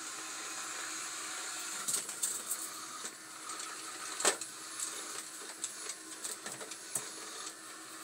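Robot vacuum cleaner running with a steady whir and hiss, broken by scattered clicks and taps, the sharpest about halfway through.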